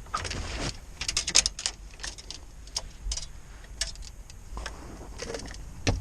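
Small hard objects being handled: scattered clicks, clinks and rustles, with a quick cluster about a second in and single clicks later.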